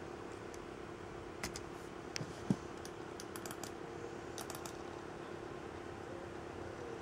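A few light clicks of a computer keyboard in short clusters, over a steady hum.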